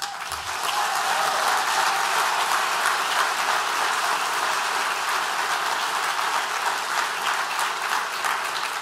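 Audience applauding, starting suddenly and going on steadily, easing off slightly near the end.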